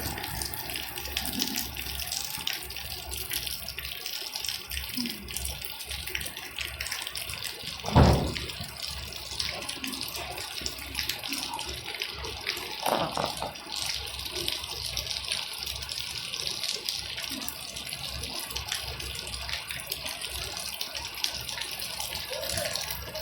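Steady rush of falling or running water, with a sharp knock about eight seconds in.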